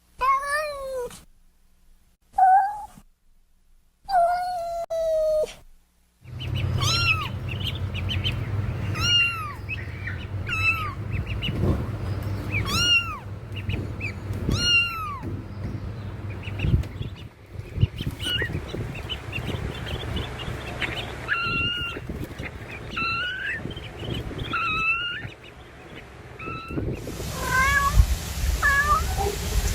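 Kittens meowing in a string of short clips: a few single meows with silent gaps, then repeated meows every second or two over a steady low background hum, and near the end quicker, shorter meows over a hiss.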